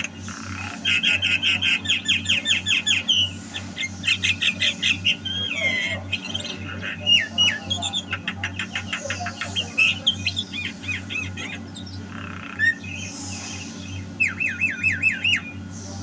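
Javan myna (jalak kebo) singing actively: quick runs of repeated chattering notes, several a second, mixed with whistles and slurred glides, easing off for a couple of seconds before a last run near the end. A steady low hum sits underneath.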